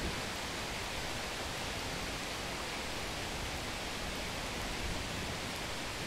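Steady rain falling as an even hiss, with no distinct drops or thunder.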